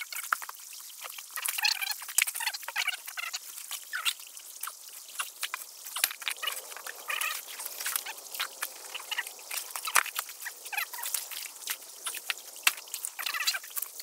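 Frogs calling in short croaking calls several times over, mixed with scattered clicks and knocks.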